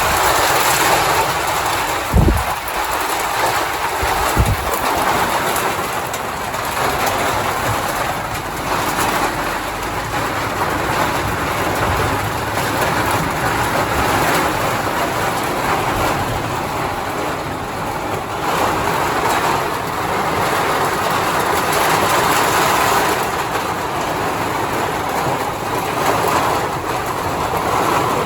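Heavy thunderstorm rain pouring steadily, swelling and easing in waves, with two short low thumps about two and four seconds in.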